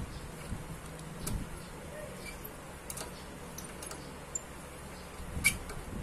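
A few faint, sharp metal clicks and clinks from an 8 mm T-wrench working the radiator bolts on a Yamaha Aerox 155 scooter, the loudest about five and a half seconds in, over a faint low hum.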